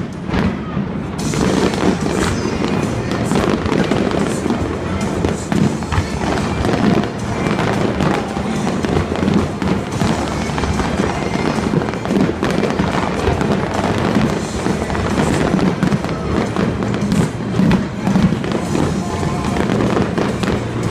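Fireworks going off one after another in a continuous crackling barrage, with music playing over a stadium loudspeaker and crowd voices underneath.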